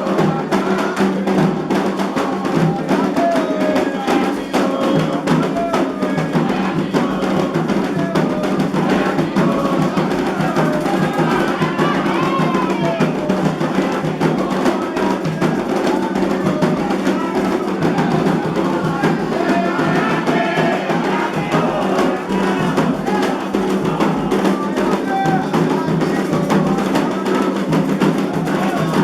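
Candomblé ritual music: hand drums played in a dense, steady rhythm with a sharp clicking percussion part, and voices singing over them.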